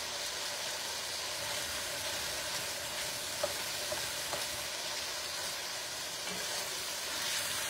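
Browned sausage and chicken sizzling steadily in a pot on the stove as cream cheese melts into the fat, with a couple of faint light clicks about three and a half seconds in.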